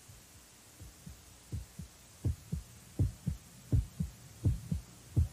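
Heartbeat sound effect: low thumps in pairs, lub-dub, about one pair every three-quarters of a second, fading in about a second in and growing louder.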